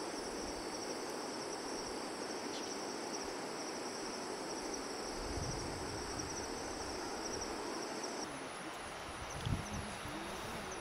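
Insects chirping in a steady, high, finely pulsing trill over an even outdoor hiss. The trill stops about eight seconds in.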